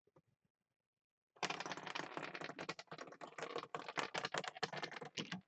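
A Plinko disc dropped from the top of a Plinko board, clattering rapidly and irregularly against the pegs for about four seconds as it falls, then stopping near the end.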